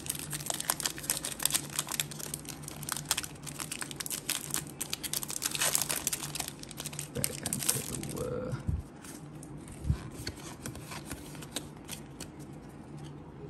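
Foil wrapper of a Pokémon trading card booster pack crinkling and tearing open for about eight seconds. After that it goes quieter as the cards are taken out and squared up, with two soft knocks.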